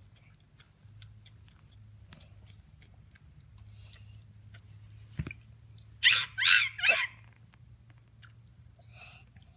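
Three short, high-pitched yelps in quick succession about six seconds in, each arching up and down in pitch, over a faint low hum and scattered light clicks.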